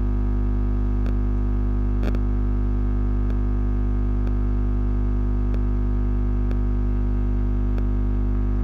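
Steady electrical mains hum with a buzz running through the recording, with faint ticks about once a second.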